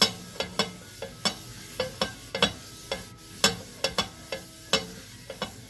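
Non-stick crepe pan knocking and rattling on the gas stove's grate as it is wiped with an oiled paper towel, about two short ringing knocks a second. A faint sizzle of frying filling runs underneath.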